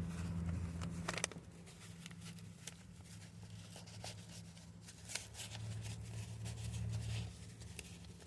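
Low steady hum of a car cabin on the move, with scattered clicks and rustles close to the microphone.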